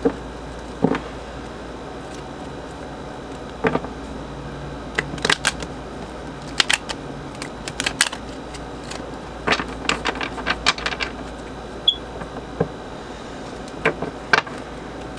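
A Rider–Waite tarot deck being shuffled by hand, the cards clicking and slapping against each other in irregular flurries, busiest through the middle of the stretch.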